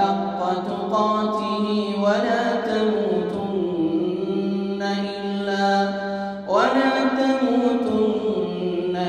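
A man's voice reciting the Quran in a melodic, ornamented style in maqam Hijaz, drawing out long held notes that waver and glide in pitch, with sharp upward sweeps about two seconds in and again past the middle.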